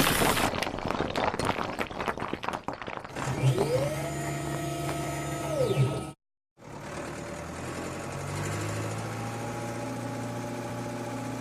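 Animated vehicle sound effects: a shattering crash tails off into crackling for a few seconds, then a cartoon engine revs up and back down. After a brief gap the engine hums steadily.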